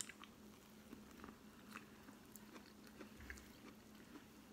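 Faint chewing, with a few small scattered clicks of mouth and food.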